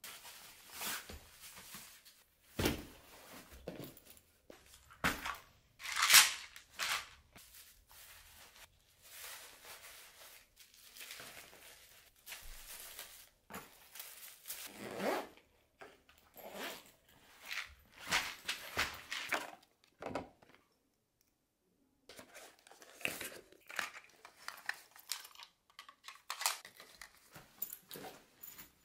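Clothes, plastic bottles and fabric pouches being handled and packed into a soft-lined suitcase: irregular rustling, crinkling and scraping, with the sharpest clatter about six seconds in and a short break about two-thirds of the way through.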